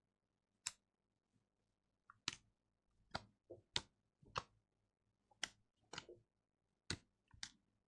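Scattered light clicks and taps, about ten at uneven intervals, with near silence between them.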